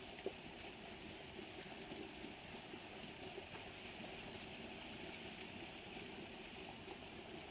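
Fast-flowing water rushing steadily down a narrow canal, with a single soft knock just after the start.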